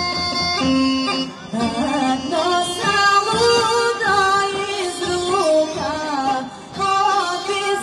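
A Rhodope folk song played live through a PA: Bulgarian bagpipes (gaidi) and a tapan drum, with a woman singing. The pipes play alone at first, and the voice comes in about a second and a half in.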